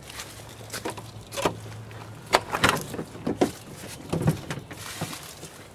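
Scattered short knocks and clicks as a truck door is handled and someone moves about the cab.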